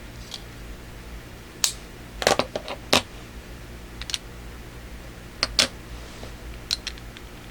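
Sharp clicks and taps of a package being opened and its contents handled, scattered and irregular, with a quick cluster about two to three seconds in and a few more near the middle and the end.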